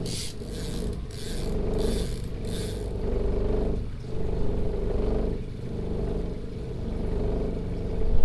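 Pontoon boat's outboard motor running steadily at trolling speed, heard from inside the canvas enclosure, its note swelling and dipping slightly. A repeated short hiss sounds over the first three seconds.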